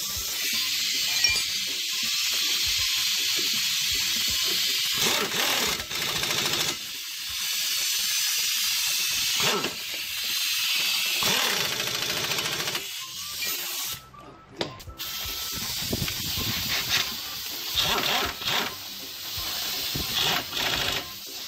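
Pneumatic impact wrench on the bolts joining a car's front strut to the steering knuckle: compressed air hisses steadily, with several short bursts of the wrench running, more of them near the end and a brief pause about two-thirds of the way in.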